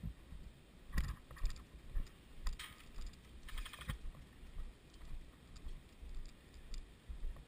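Footsteps on grass about twice a second, with light clicking and rattling from carried gear; a quick run of rapid clicks comes a little before halfway.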